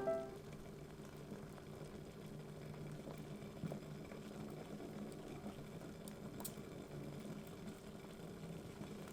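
Faint, steady bubbling of a tiny pot of broth simmering on a miniature stove, with an occasional small click.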